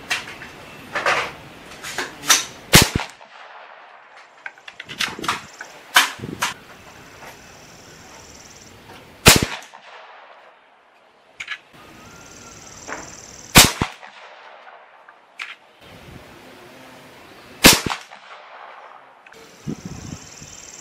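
Dragon Claw .50 caliber PCP big-bore air rifle firing 177-grain lead round balls: a series of sharp shots, the loudest about four seconds apart, with smaller clicks and knocks between them.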